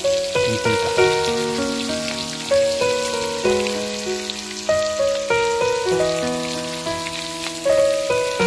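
Cubes of pork belly sizzling and crackling as they fry in their own rendered fat, under background instrumental music of held notes that change every half second or so.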